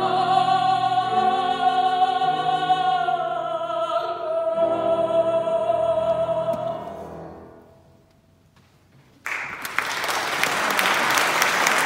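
A woman singing opera with vibrato over an accompaniment, holding a long high final note that fades out about seven seconds in. After about a second of near silence, the audience starts applauding.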